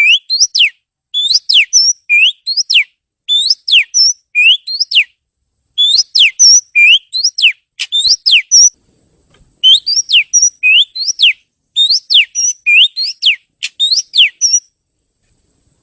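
Oriental magpie-robin singing: loud, clear whistled notes, each rising and then dropping sharply, delivered in quick repeated phrases of four or five notes with short pauses between them. The song stops shortly before the end.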